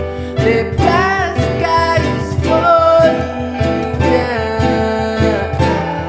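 Background music: an acoustic guitar song with a steady beat.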